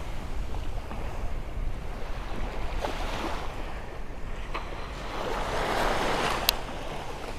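Small waves breaking and washing up a sandy shore, with wind buffeting the microphone as a low rumble. A few light clicks sound over it, one sharp click a little past six seconds in.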